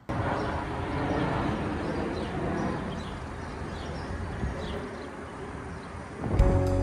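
Steady outdoor rushing noise with faint short bird-like chirps above it; music comes in near the end.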